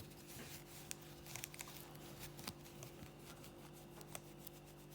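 Faint rubbing and handling of a Cape Cod polishing cloth on a metal sonic screwdriver prop, with scattered light clicks and taps, over a steady low hum.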